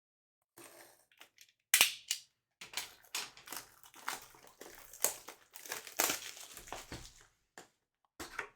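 Plastic wrapping crinkling and crackling in irregular bursts as it is handled and torn, with a sharp snap about two seconds in; typical of the shrink wrap coming off a sealed hobby box of trading cards.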